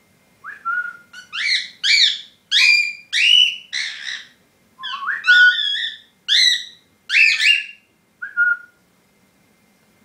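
Cockatiel whistling a song: a run of about a dozen loud whistled notes, most of them rising in pitch, that stops a little over a second before the end.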